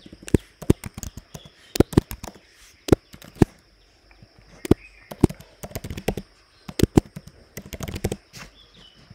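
Typing on a computer keyboard: irregular sharp key clicks in quick runs, with short pauses between the runs.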